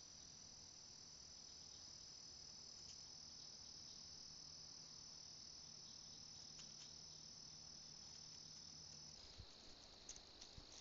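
Faint, steady high-pitched trilling of crickets at night. About nine seconds in the chorus shifts slightly lower in pitch, and a few faint ticks follow near the end.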